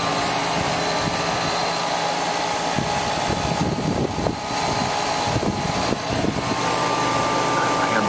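Rheem RANL 4-ton air-conditioning condenser running steadily, its compressor and condenser fan making a constant whir with a couple of faint, steady high tones, under load while it is charged with refrigerant.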